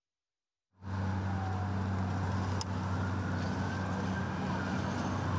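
City road traffic: cars passing with a steady low engine hum. It cuts in abruptly about a second in, after a moment of silence.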